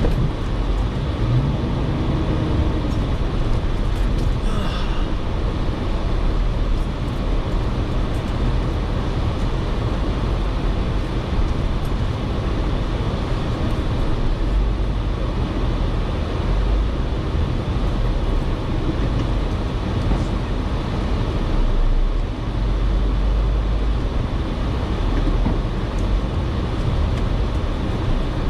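Jeep Wrangler with a six-speed manual driving off-road: a steady engine and drivetrain rumble, heavy in the low end.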